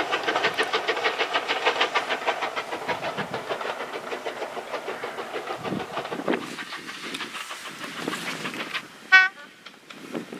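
Steam locomotive working away into the distance, its exhaust beating in rapid, even chuffs that steadily fade. Near the end a single brief, loud, high-pitched squeak cuts in.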